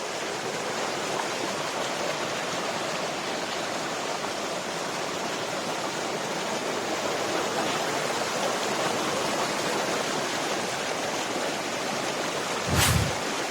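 Rushing water running steadily, with a short loud thump near the end.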